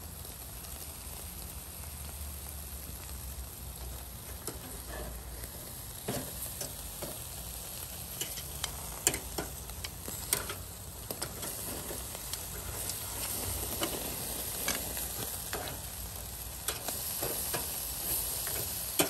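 Marinated ribs sizzling on a charcoal grill, with fat dripping onto the hot coals and burning. A steady hiss runs under sharp pops and clicks that come more often from about six seconds in, as metal tongs turn the meat on the wire rack.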